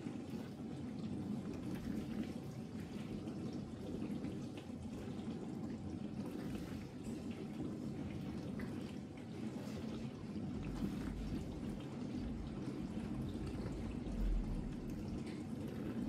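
Ariston dishwasher running its test programme: water splashing and dripping inside the tub over a steady low hum, with a brief low thump near the end.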